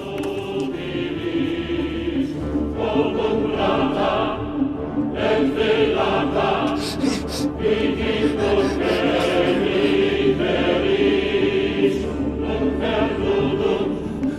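Background music with choir voices singing held chords.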